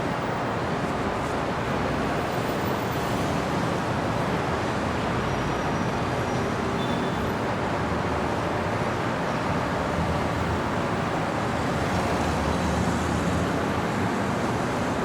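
Steady city street traffic: a continuous wash of passing cars and road noise, with no single event standing out.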